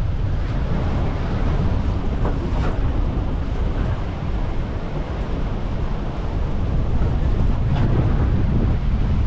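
Wind buffeting the microphone in the open back of a moving pickup truck, a steady low rumble with the truck's running noise beneath it.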